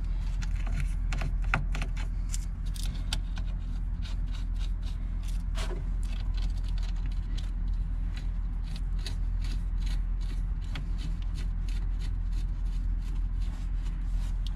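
Metal battery terminal nuts and hand tools clicking and scraping as the nuts are refitted, then a plastic battery-box cover rubbing and knocking as it is pushed into place. The clicks come irregularly over a steady low hum.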